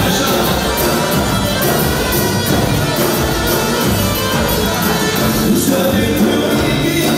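Music with singing and a steady beat.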